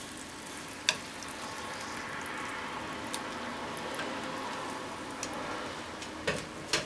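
Meat-wrapped potato rolls sizzling steadily in sauce in a frying pan, with a few sharp clicks of wooden chopsticks against the pan as the rolls are turned, one about a second in and two near the end.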